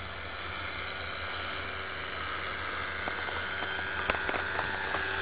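Distant .60-size glow engine of an RC trainer plane in flight, a thin whine that grows louder over the second half above a steady hiss. A few light clicks about three to four seconds in.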